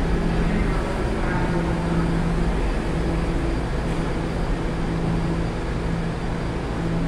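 New York City subway train at the platform, giving a steady low rumble with a low hum that breaks off and comes back every second or so, filling the underground station.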